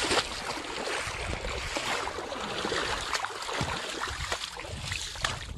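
Shallow river water splashing and sloshing around hands and legs as people wade and feel under rocks for fish by hand, many small splashes over a steady wash of water.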